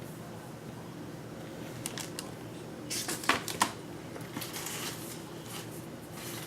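Hard plastic CGC comic-book slabs being handled, clicking and clacking against each other, with rustling between; the sharpest clacks come a little after three seconds in.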